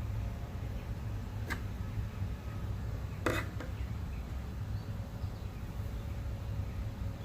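Two short knocks about two seconds apart, the second the louder, over a steady low hum.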